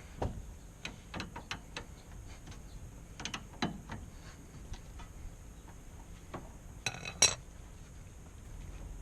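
Scattered metallic clicks and clinks of a wrench being worked on the 19 mm nut of a steering tie rod, with a louder metal clank about seven seconds in.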